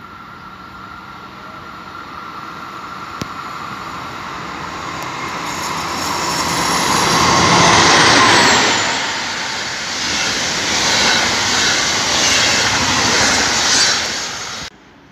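Two DB class 218 diesel-hydraulic locomotives in multiple, their diesel engines growing steadily louder as they approach and loudest about eight seconds in as they pass, followed by the rumble of the passenger coaches rolling by on the track. The sound cuts off suddenly near the end.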